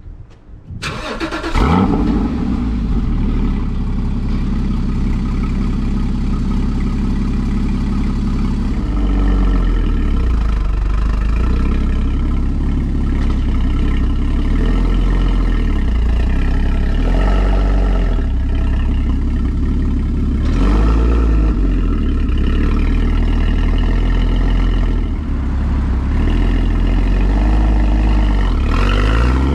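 Porsche Cayman GT4 (981) 3.8-litre flat-six starting up with a high flare of revs about a second in, then running on, with its revs rising and falling several times and climbing again near the end.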